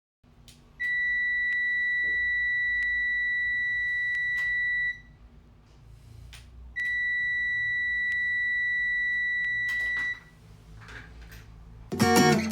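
Multimeter continuity tester sounding two steady, high beeps about four seconds each, with a short gap between, while its probes click against the contacts. The tone signals a closed circuit.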